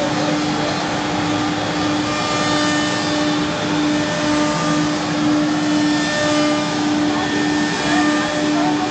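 Disc-ATC CNC router running: its spindle gives a steady tone over an even rushing machine noise.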